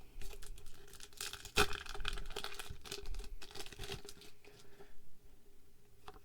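Foil wrapper of a Pokémon card booster pack being crinkled and torn open, with a sharp rip about one and a half seconds in; the rustling dies down to light handling near the end.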